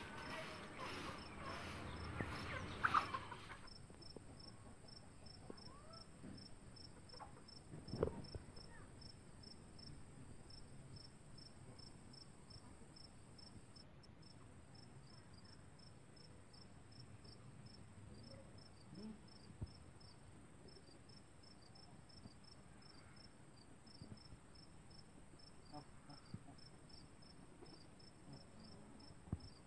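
A cricket chirping in a long, even run of short, high-pitched pulses, faint and steady, starting a few seconds in. Chickens cluck briefly at the start, and there is a single thump about eight seconds in.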